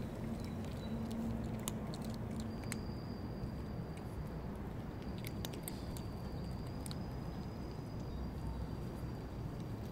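Cats crunching dry kibble: scattered crisp crunches and clicks over a steady low background rumble.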